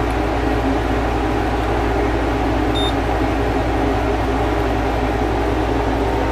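Small air conditioner running steadily, a constant hum under the rush of its fan. About three seconds in, a handheld infrared thermometer gives one short high beep as it takes a reading.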